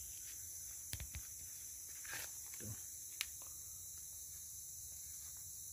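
Steady high-pitched chirring of tropical forest insects, with a few faint clicks and a soft rustle in the leaf litter.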